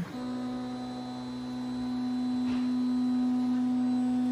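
Geeetech A20M 3D printer's stepper motors whining with one steady pitch as they drive the print head to the next bed corner during corner leveling.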